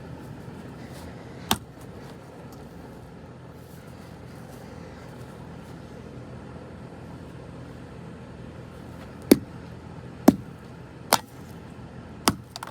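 A golf club striking a walkie-talkie: five sharp cracks, one about a second and a half in, then four in quick succession over the last few seconds, over a steady low hum.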